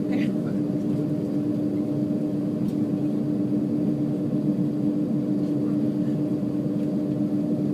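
Steady cabin drone of an Airbus A330-300 heard from a passenger seat: engines and air system running evenly with a constant low hum and a steady tone, no rise in pitch or power.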